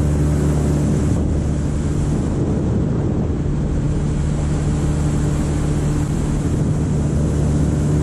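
Motorboat engine running steadily under way, with a steady hiss of wind and water over it.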